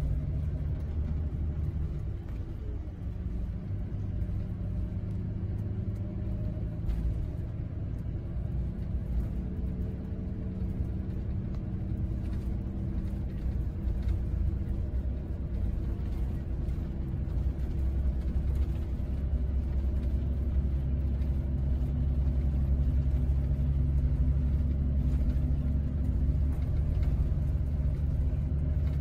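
Scania double-decker coach's diesel engine and tyre noise droning inside the upper-deck cabin while the coach cruises on the highway. The steady low rumble carries an engine note that shifts in pitch and grows a little louder in the second half.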